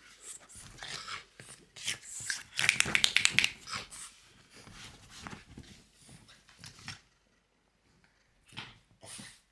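A French bulldog making a string of short, noisy snorting and grunting sounds, with a loud rapid run of them about three seconds in. It then falls quiet apart from two brief noises near the end.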